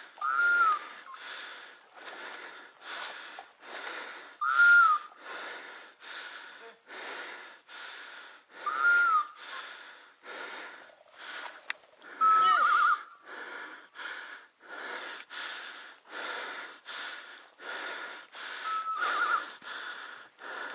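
A hunting dog's beeper collar in point mode, signalling that the dog is holding a point: a short electronic tone that rises and falls, repeated about every four seconds, then twice a quick warbling tone. Under it, a person's heavy, rhythmic breathing.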